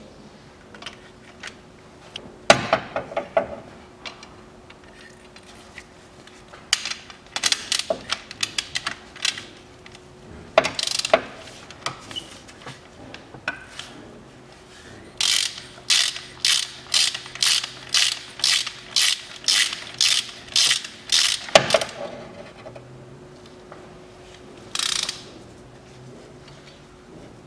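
Ratchet wrench with a 13 mm socket clicking in short bursts as nuts are undone. In the second half it settles into a run of about fifteen quick strokes, a little over two a second. A single hard knock follows.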